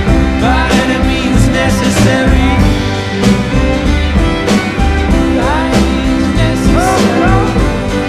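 Instrumental break of an indie rock song: a steady drum beat and bass under sustained chords, with a run of short sliding high notes near the start and again about two-thirds of the way through.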